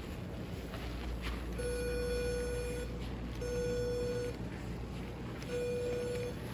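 E-collar remote's sound box beeping three times, each a steady mid-pitched tone lasting about a second, separated by short gaps. Each beep marks a press of the stimulation button, sending a low-level (4 of 100) stim to the dog's collar.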